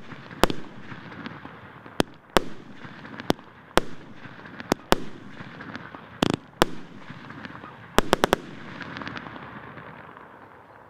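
A 37-shot, 1.25-inch consumer firework battery (cake) firing its final shots: single sharp bangs every half second to second and a half, then a quick volley of four about eight seconds in. A noisy haze lingers between the bangs and fades away after the last one.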